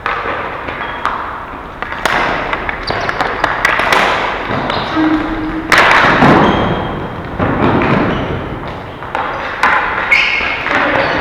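Ball hockey play: sticks clacking on the ball and floor, and the ball and players thumping against the rink boards at irregular moments, with a few short shouts from players.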